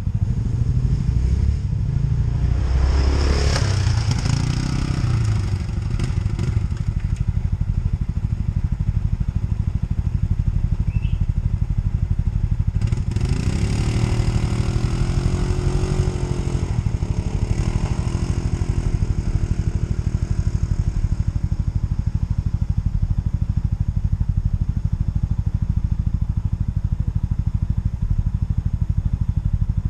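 ATV engine running while riding, a steady low drone that swells with throttle about two seconds in and again around thirteen seconds.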